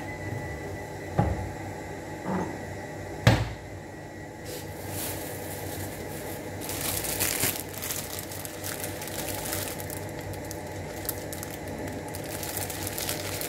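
A few sharp knocks as items are set down, the loudest about three seconds in, then plastic grocery bags rustling and crinkling as groceries, including a head of lettuce in a plastic bag, are taken out.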